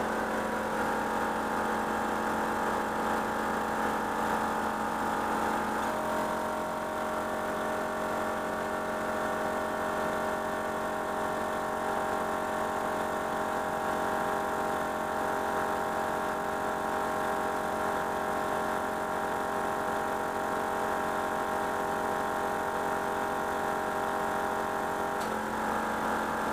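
12-volt DR Air Pro Flow portable air compressor running steadily under load, pumping up a tyre let down to 15 psi, over the Nissan Patrol's engine idling to power it. The hum shifts slightly in pitch about six seconds in and again near the end.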